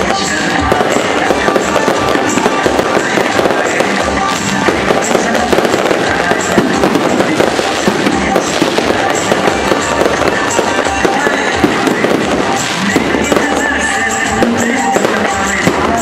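Fireworks crackling and popping in a dense, unbroken barrage, with music playing underneath.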